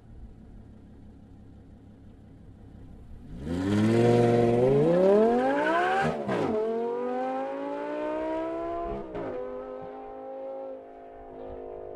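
Infiniti G35's 3.5-litre VQ V6 through a Motordyne Shockwave exhaust with ART pipes, idling and then revving hard. About three and a half seconds in it climbs steeply in pitch and is loudest there, drops off sharply, climbs again more slowly, drops again near nine seconds, and then holds a steady lower note.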